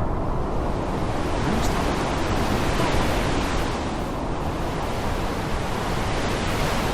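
Heavy rain in a storm: a steady, dense hiss with a deep rumble underneath, swelling a little in the treble a second or two in.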